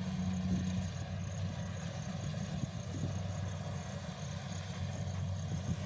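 Combine harvester engine running with a steady low hum.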